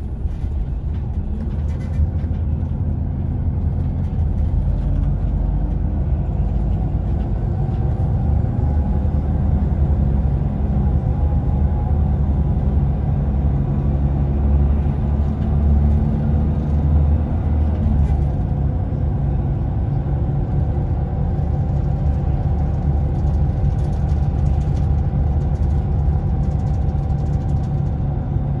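Scania Irizar Intercentury 10.32 bus driving along, heard from inside the passenger cabin: a steady low engine and road rumble. The engine note rises slowly through the middle and drops back about eighteen seconds in.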